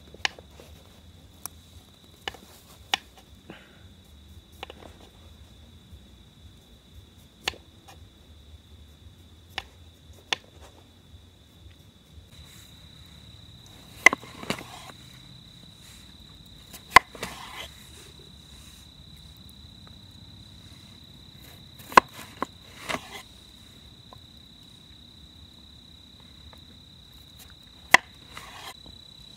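Knife cutting raw potatoes on a wooden cutting board: sharp, irregular knocks of the blade striking the board, a dozen or so, the loudest about halfway through and near the end. Crickets keep up a steady high chirr behind it.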